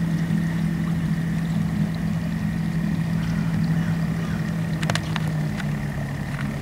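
Outboard motor running steadily at low speed as a boat motors slowly past, a constant pitched drone. A few sharp clicks come about five seconds in.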